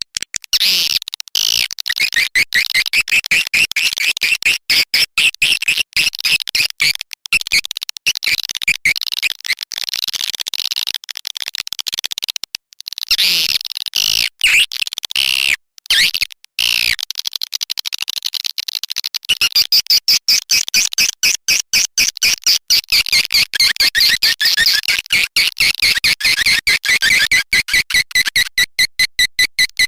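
Swiftlet call recording: a dense, continuous high-pitched twittering of rapid chirps, with a couple of short breaks midway. This is the lure call that farmers play to draw swiftlets into a bird house to roost and nest.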